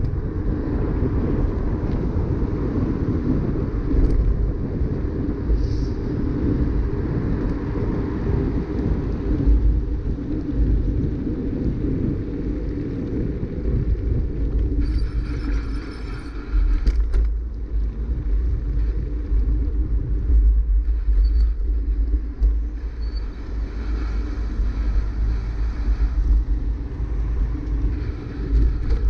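Wind buffeting the microphone and tyre rumble from a bicycle riding along an asphalt cycle path, a steady low rumble, with a short burst of higher hiss about halfway through.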